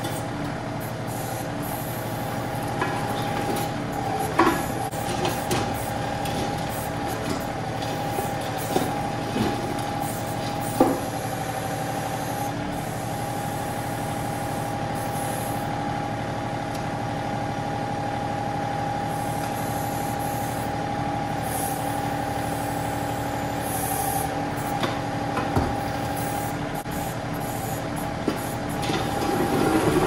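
John Deere 2038R compact tractor's diesel engine running steadily under load while its 270B backhoe works, with a steady whine over it. A few short knocks of the bucket against broken concrete come through, the busiest near the end.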